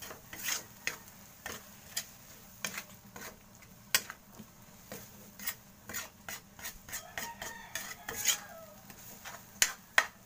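A metal ladle stirring a moist mashed eggplant and egg mixture in a metal wok: irregular scrapes and sharp knocks of metal on the pan, the loudest clank about four seconds in, over a faint sizzle.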